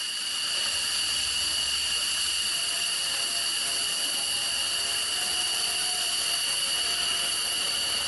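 F-16 fighter jet engine running with a steady high whine over a constant rush.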